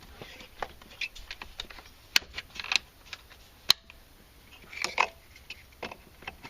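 Irregular plastic clicks and knocks from a new mass airflow sensor being fitted into a Mercedes W202's air box and intake by hand. Two sharper clicks stand out, a second or so into the handling and again about a second and a half later, with a small cluster of knocks near the end.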